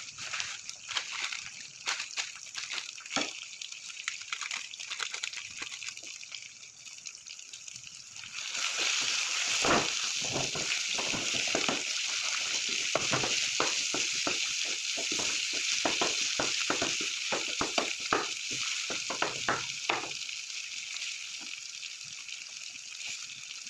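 Saag sizzling in a pan, with the click and scrape of a spoon stirring; the sizzle gets clearly louder about eight seconds in, then eases off near the end.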